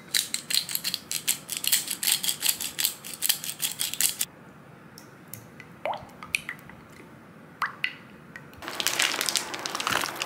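Wooden spoon stirring a sauce in a glass measuring cup: quick clinking and tapping strokes for about four seconds, then a few scrapes. Near the end, a pot of boiling water bubbles and hisses as a block of udon noodles is dropped in.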